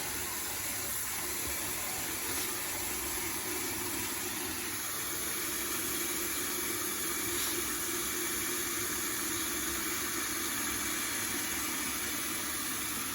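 A steady hiss with a low, even hum underneath.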